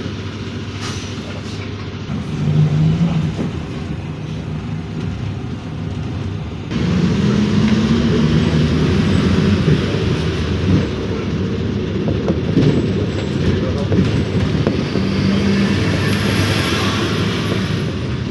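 PAZ Vector Next city bus running, engine hum and road noise heard from inside the cabin, growing noticeably louder about seven seconds in.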